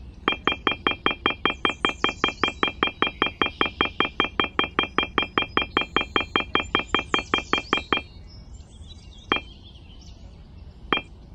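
Rapid electronic beeping: one short beep repeated about six times a second, stopping about eight seconds in and followed by three lone beeps.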